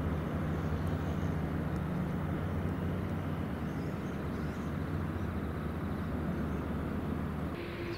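Airliner jet engines running with a steady low rumble. Near the end the sound cuts abruptly to a different engine sound with a steady whine on top.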